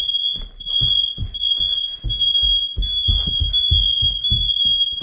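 Household smoke alarms sounding in test: a shrill high-pitched tone with short breaks, several alarms going together. A run of dull low thumps sounds over it.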